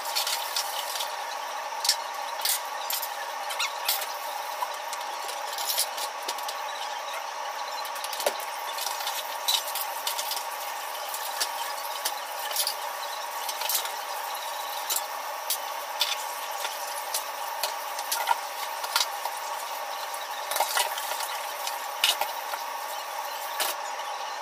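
Dishes and utensils clinking and knocking now and then as they are washed at the sink and set into a plastic dish rack, over a steady background hum.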